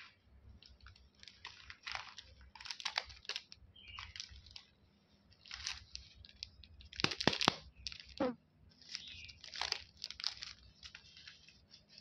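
Candy wrappers crinkling and tearing as they are unwrapped, in irregular bursts of rustling.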